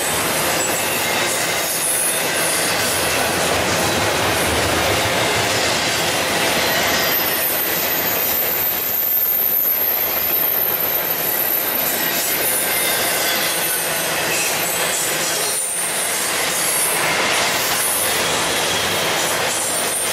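A double-stack intermodal freight train's well cars rolling past: steady noise of steel wheels on rail, with no break.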